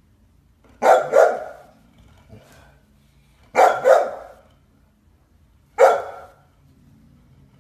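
Golden retriever barking loudly: two quick barks, a pause, two more, then a single bark.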